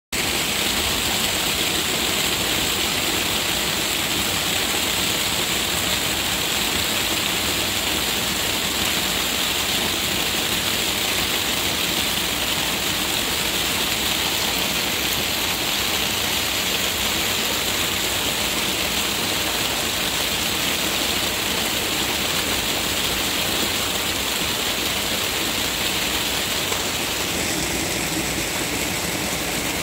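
Heavy rain pouring down steadily, a dense, even hiss. Near the end it takes on a lower tone as it splashes into a puddle of standing water.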